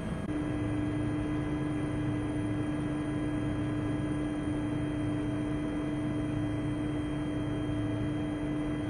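Steady engine and airflow drone heard inside a small aircraft's cabin in flight, with a constant hum that sets in just after the start.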